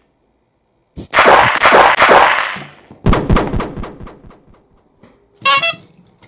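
Loud explosion-like noise bursts from added sound effects. A second of silence is followed by a long hissing burst, then a deep rumbling thump about three seconds in, and a short bright chime near the end.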